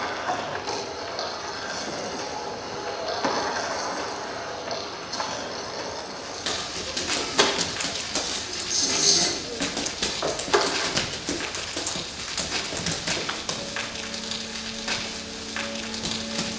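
Experimental DJ sound collage played from vinyl on turntables: a haze of noise with scattered knocks, turning into a dense run of clicks and crackles about six seconds in. Steady low held tones come in near the end.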